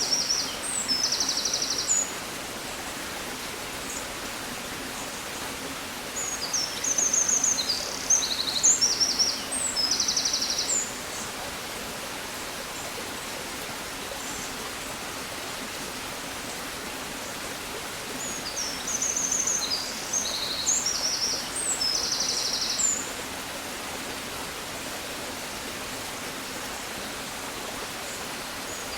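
A songbird sings a short, high, trilled song phrase, repeated a few times with pauses of several seconds between, over a steady hiss of outdoor background noise.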